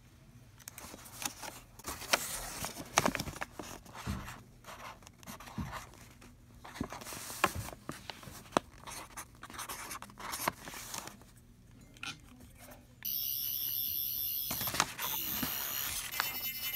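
Pen nib scratching and tapping on paper as the UV ink pen of a toy sonic screwdriver writes on an instruction sheet. About thirteen seconds in, a steady, louder high electronic warble starts and runs on.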